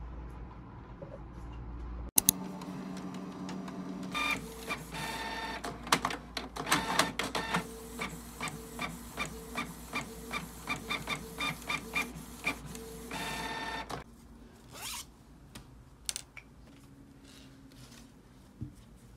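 Canon ink-tank inkjet printer printing a page: its motor runs with an even run of clicks, about three a second, as the print head travels and the paper advances. It stops about fourteen seconds in.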